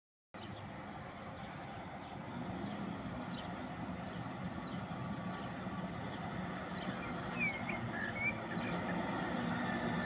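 Tractor engine running as the tractor approaches along a road, a steady hum growing slowly louder. Birds chirp a few times about three-quarters of the way through.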